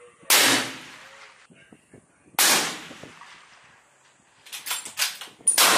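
Three loud gunshots about two seconds apart, each trailing off in an echo, with a quick run of quieter sharp cracks just before the third.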